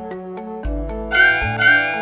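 Background music with a pulsing bass line and a plucked melody. About a second in, short high meow-like cat calls come in over it, two in quick succession.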